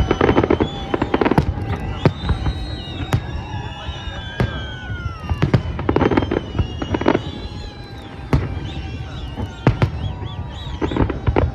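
Fireworks going off: repeated sharp bangs and crackling bursts in clusters, with high whistling tones that glide up and down in pitch between them.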